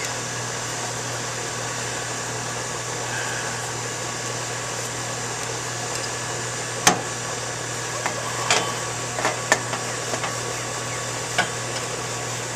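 Steady hum and whir of a running air-conditioning unit. About seven seconds in comes one sharp click, then several lighter clicks and taps: the can tap of a refrigerant-additive dispenser being worked to puncture the can.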